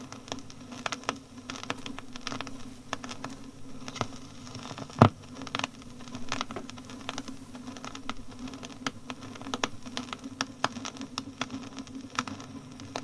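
Crackle and irregular clicks of an old disc's surface noise over a faint steady low hum, with one louder click about five seconds in.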